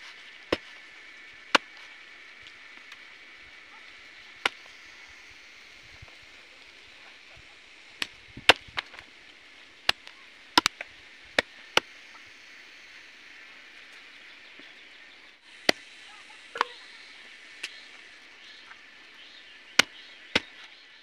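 Machete chopping raw chicken on a wooden log chopping block: sharp single chops at irregular intervals, some in quick clusters, about seventeen in all. A steady high hum in the background stops about three-quarters of the way through.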